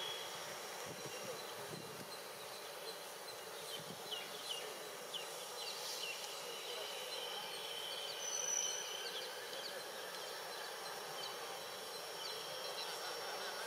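Faint outdoor ambience: a steady hiss with a scattered run of short, high chirps a few seconds in and a brief high tone past the middle.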